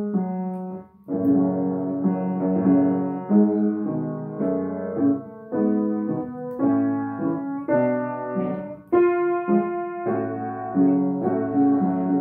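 Petrof upright piano played with both hands: a run of chords struck one after another, about two a second, with a short break about a second in.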